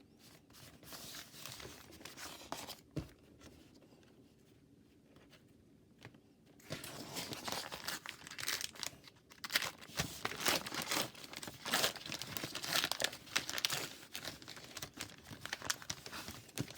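Plastic wrapper of a Bee Hive hockey card pack crinkling as it is handled and torn open. There is light crinkling at first, a short lull, then steadier, louder crinkling and tearing from about six seconds in.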